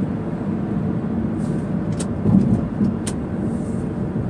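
Steady engine and road noise inside a moving car, with two short clicks about a second apart in the middle.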